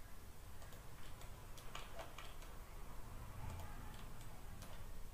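Faint computer mouse clicks, several at an irregular pace, as edges are picked one after another, over a low steady hum.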